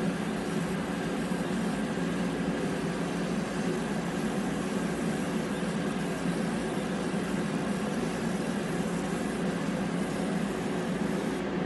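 Laser engraving machine running while it marks a plaque: a steady, even hum and hiss with no breaks.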